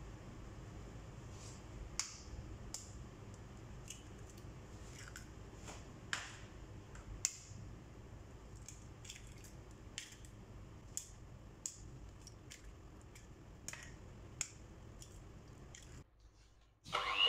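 Eggshells being tapped and cracked on the rim of a glass bowl and the eggs dropping in, a scattered series of sharp little clicks and taps over a faint room hum. Right at the end a louder electric hand mixer starts up.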